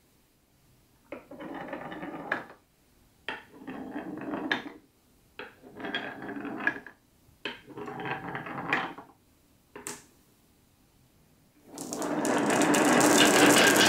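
Glass marbles rolling in carved wooden grooves: four separate batches rattle along, each ending in a sharp clack as the marbles stop against a wooden bar. About twelve seconds in, a loud dense clatter starts as the whole load of marbles rolls down the wavy grooves at once.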